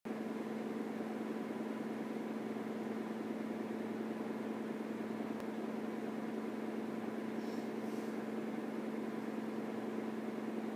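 A steady, even hum with a low hiss underneath.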